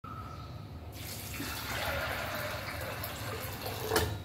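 Water poured in a steady stream into an aluminium pressure cooker over soaked white peas, starting about a second in. A short knock near the end.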